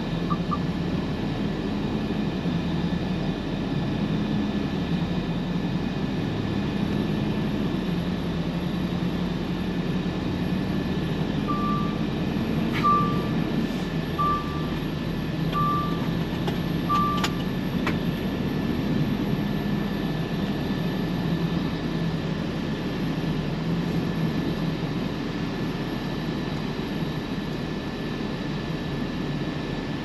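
Volvo FH truck's diesel engine and road noise heard inside the cab while driving, a steady hum that rises and falls slightly. About midway, five short beeps sound roughly a second apart.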